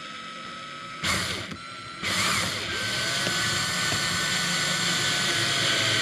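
Cordless drill driving a screw through a seatbelt buckle into a wooden board, its motor whining steadily. It runs softer at first with a brief surge about a second in, then louder from about two seconds in.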